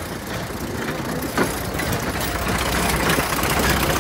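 Small narrow-gauge diesel locomotive running slowly past while hauling passenger carriages: a steady low engine hum over the rumble of wheels on rail, growing louder toward the end, with one sharp click about a second and a half in.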